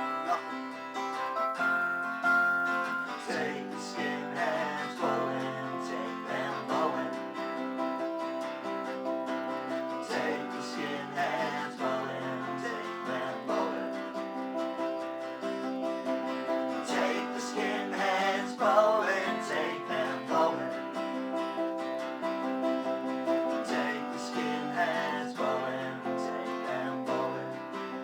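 A small band playing a song, mainly plucked and strummed string instruments, with no break.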